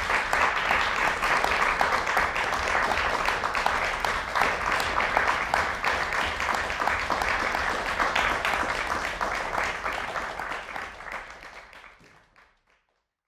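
Audience applauding with dense clapping, fading out near the end.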